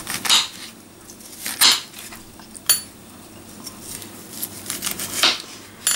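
Kitchen knife slicing an apple cucumber into wedges on a plastic cutting board: about five separate cuts, each ending in a short sharp knock of the blade on the board.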